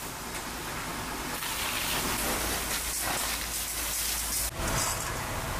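Steady hissing of fire-hose water jets spraying onto a burning building, mixed with the noise of the fire. The sound changes abruptly about four and a half seconds in.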